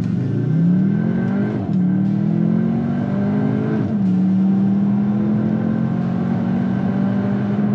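Cupra Formentor's 2.0-litre turbo four-cylinder at full throttle, heard from inside the cabin, accelerating from a standstill. The engine note climbs, then drops as the seven-speed DSG upshifts about a second and a half in and again about four seconds in, and then holds a steady note.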